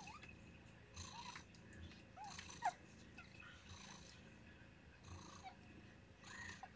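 Faint cat purring that swells and fades about once a second with the cat's breathing, with a few tiny high squeaks from day-old kittens, the sharpest about two and a half seconds in.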